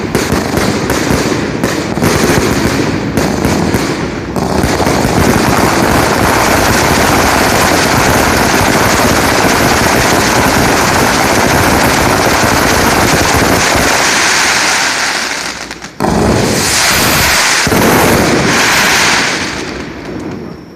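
Large Japanese tube fireworks (ōzutsu) spraying sparks with a continuous, dense crackling rush. The rush dips just before the middle of the last third, surges again, then dies away near the end.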